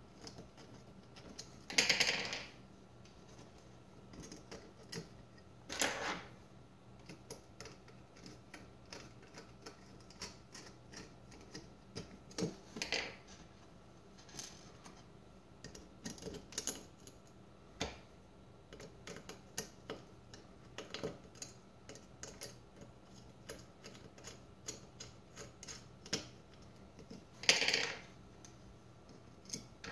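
Irregular small clicks and taps of tiny metal screws, washers and small screwdrivers handled against an aluminium case and a wooden tabletop. A few louder scuffs of about half a second stand out, the loudest about two seconds in and near the end.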